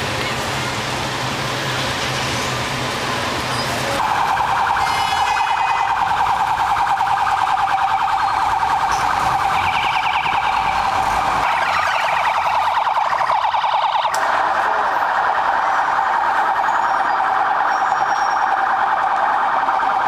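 Electronic siren sounding a steady, rapidly pulsing tone, coming in about four seconds in over street traffic noise.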